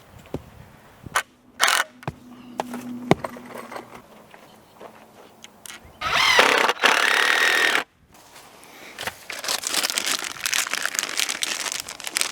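Power drill driving screws into wood: one run of almost two seconds about six seconds in, then a longer, rougher run with clicking near the end, among scattered knocks of boards being handled.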